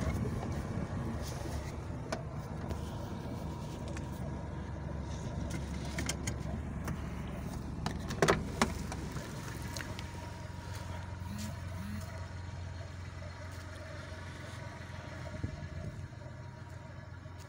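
Inside a moving car: steady low engine and road rumble, with two sharp clicks about eight seconds in.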